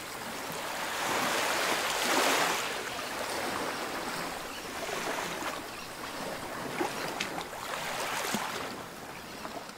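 Rushing noise of ocean surf, swelling about one to two and a half seconds in and then easing off.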